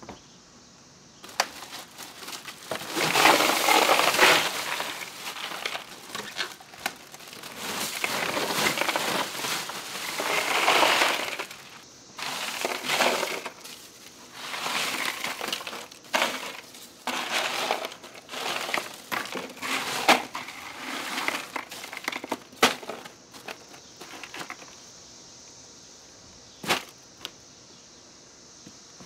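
Ice crunching and clinking in repeated bursts as a hand scoops and shoves it aside in a plastic cooler to uncover chilled whole chickens. It goes quieter about three-quarters of the way through, leaving a few sharp clicks.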